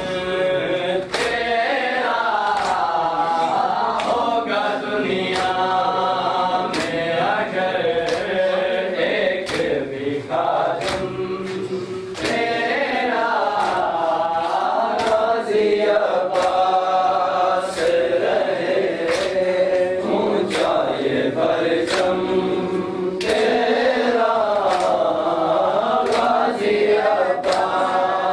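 A group of men chanting a noha, a Shia mourning lament, in unison. Their open-hand chest-beating (matam) lands as sharp slaps about once a second, in time with the chant.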